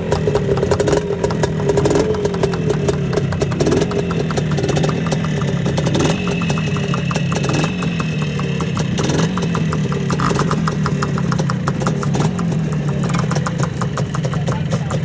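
Bultaco Frontera two-stroke single-cylinder motorcycle engine idling, with brief throttle blips about every two seconds.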